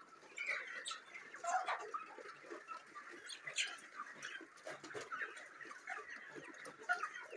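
A large flock of broiler chickens feeding: many short, overlapping cheeps and clucks all through.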